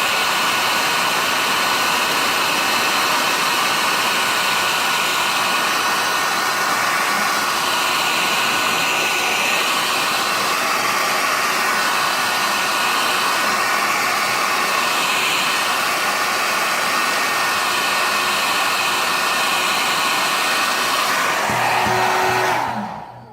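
Hair dryer blowing steadily, with a whining fan tone over its rush of air, then switched off near the end and spinning down. It is heating the phone to soften the glue holding the back glass.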